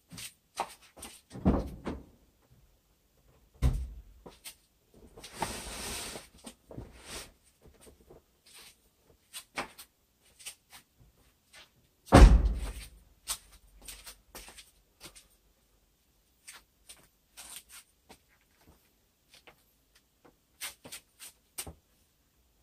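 Scattered knocks, clicks and rustling from gear being handled and shifted in a car's boot while an air mattress is fitted. The loudest thump comes about twelve seconds in, with a short rustle around five to six seconds in.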